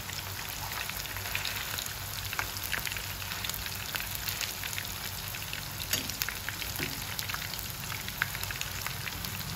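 Lotus root and plant-based meat patties shallow-frying in hot oil in a non-stick pan: a steady crackling sizzle full of fine pops.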